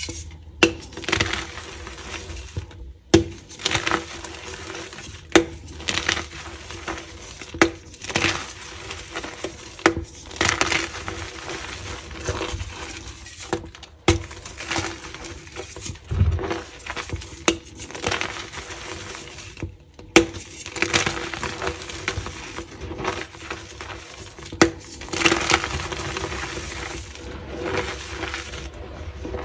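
Reformed gym chalk being crushed and crumbled by hand: the pressed chalk block breaks with repeated crunching and crackling, with sharp snaps every second or two, and loose powder rustles between the fingers.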